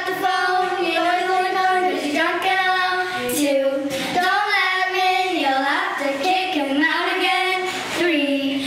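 Young girls singing together, holding long notes that step up and down in pitch.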